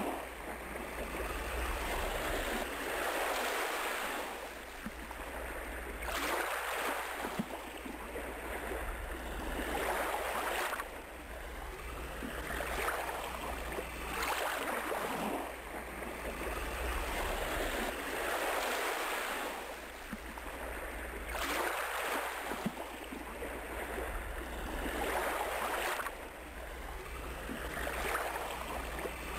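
Ocean surf: waves breaking and washing in, swelling and fading every two to four seconds over a steady low rumble.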